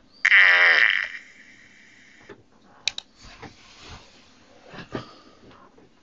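A short electronic sound effect from the Arduino puzzle box's small WAV-player speaker, with a falling pitch and lasting under a second, right after a button is pressed. Two faint clicks come later, one about three seconds in and one near five.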